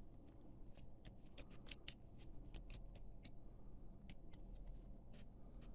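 Faint, crisp clicks and ticks of trading cards being handled and flipped through one by one, most frequent in the middle of the stretch.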